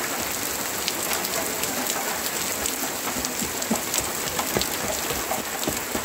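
Heavy rain falling steadily, with many sharp drop taps close by on a hard surface.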